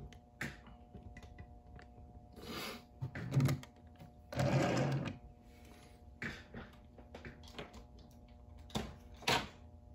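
Plastic Transformers figures being handled and moved on a wooden desk: scattered clicks and knocks with a few louder rustling, scraping bursts, the loudest about halfway through.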